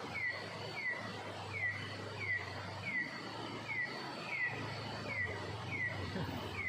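An animal calling over and over with a short curving note, about one and a half calls a second, steady in pace throughout.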